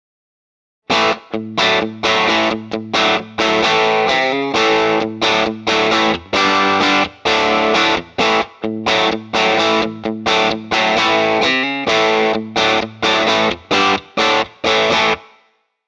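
Distorted electric guitar played through a TC Electronic Impulse IR loader's speaker-cabinet impulse response. It plays a riff of short, chopped chords with brief gaps between them. The riff starts about a second in and stops near the end, with the last chord ringing out briefly.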